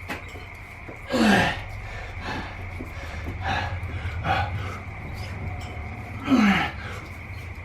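A man's forceful effort exhalations during a set of bent-over rows: two loud breathy grunts that fall in pitch, about a second in and about six seconds in, with fainter breaths between. A steady high tone and a low hum run underneath.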